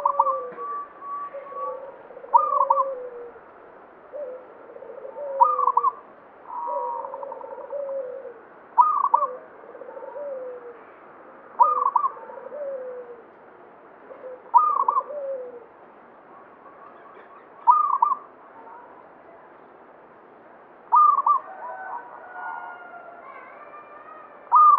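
Zebra dove (perkutut) cooing in its song: a sharp, loud note about every three seconds, with softer, lower falling coos in between.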